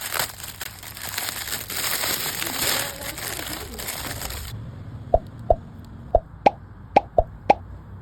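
Plastic packaging crinkling and tearing as a squishy toy is unwrapped. About five seconds in, the rustling stops and a quick run of seven short, pitched plops follows.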